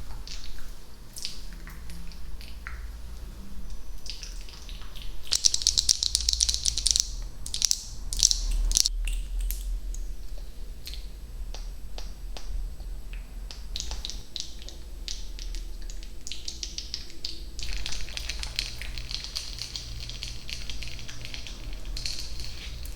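Close-miked ASMR trigger sounds: a run of crisp clicks and crackles, thickening into dense, hissy crackling about five seconds in and again from about eighteen seconds on.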